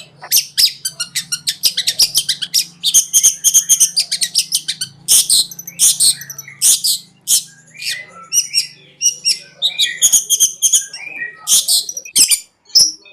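Long-tailed shrike (cendet) singing a fast, unbroken run of sharp, high chattering notes, several a second.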